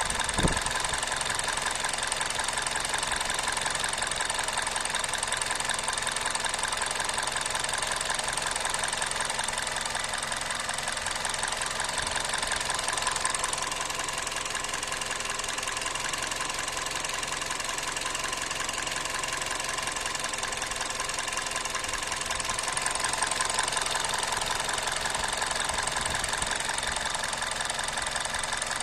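Toyota 3ZZ-FE 1.6-litre four-cylinder petrol engine of a 2004 Corolla idling steadily, with one brief knock about half a second in. The owner suspects a misfire: the engine shakes at idle and its revs drop, though an OBD scan shows no misfire.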